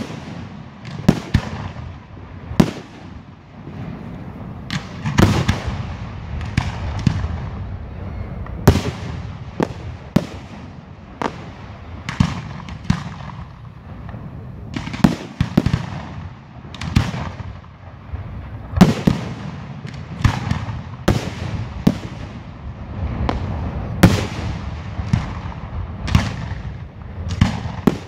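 Aerial firework shells bursting one after another in a display, sharp bangs coming every second or so, each trailing off in a rolling echo.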